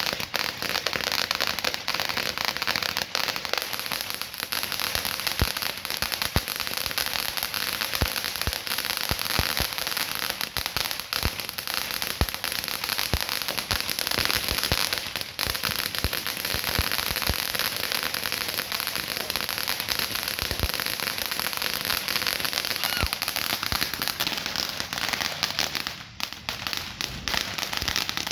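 A lit consumer firework, a "Fat Cat", crackling continuously with many sharp pops. It dies down briefly about 26 seconds in, then crackles again.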